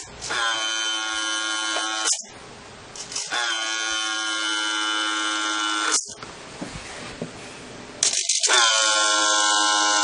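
A small electric motor on a remote-control model dump truck whines in three bursts of about two to three seconds each. At the start of each burst the pitch drops, then it holds steady until the motor cuts off.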